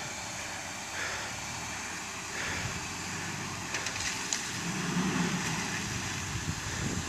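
A 4x4 SUV's engine running under load as it crawls over logs across a muddy, water-filled pit, rising in a rev about five seconds in.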